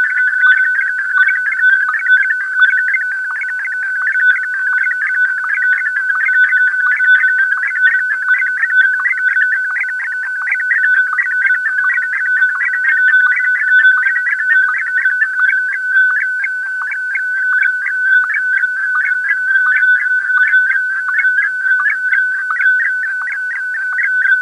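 Unidentified radio data signal heard through a receiver: a steady high tone with a fast pulsing warble on it, and slow sweeps that come round about every three and a half seconds.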